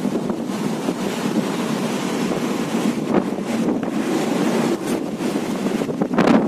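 Strong wind buffeting the microphone over a rough sea, with the rush of breaking waves underneath; a stronger gust near the end.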